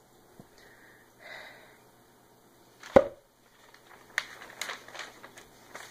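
A thick hardcover textbook being opened on a table: one loud thud about three seconds in as the heavy cover drops open, then quick rustling and flicking of paper pages.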